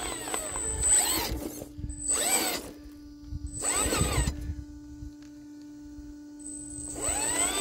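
RC rock crawler's electric drive motor whining in short throttle bursts, four times, each rising and falling in pitch as the truck climbs a boulder.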